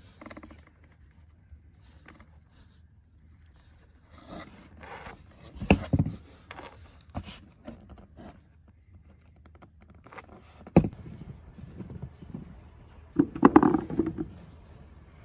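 Small scrapes and clicks of a wooden toothpick prying the stem ends out of green ume plums held in the fingers, with a few sharper clicks. Near the end there is a burst of handling noise as plums are moved about in a plastic bowl.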